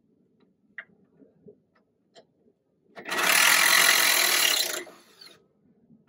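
Weathered wooden balcony railing being wrenched loose by hand: a few light knocks, then, about three seconds in, a loud crackling creak of the old wood splitting and giving way for about two seconds.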